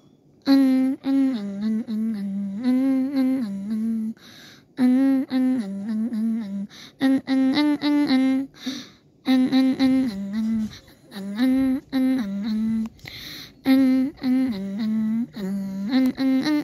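A voice humming a wordless melody in phrases of a few seconds, with short pauses between them, starting about half a second in.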